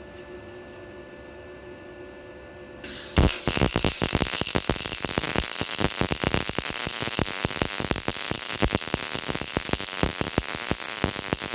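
MIG welding arc from a PrimeWeld MIG 180 crackling steadily as a bead is run on 20-gauge mild steel, starting about three seconds in after a low steady hum.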